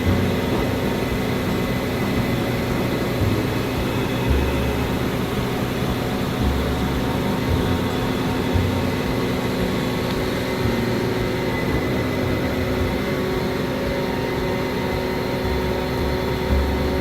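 Heavy diesel farm machinery running steadily during harvest work: a continuous engine drone with steady whining tones above it and the occasional low thud.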